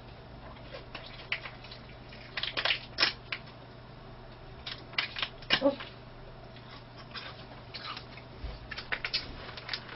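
Small plastic packet crinkling in short bursts, three spells of crackles, as it is bitten and pulled at with the hands while being torn open; it is hard to tear.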